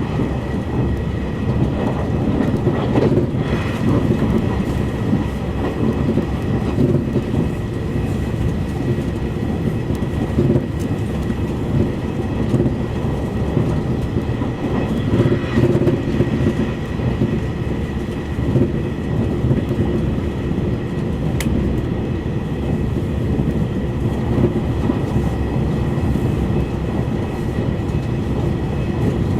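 Running noise inside a JR East E351 series limited express car at speed: a steady rumble of wheels on rail with a thin steady high tone over it. One sharp tick comes about two-thirds of the way through.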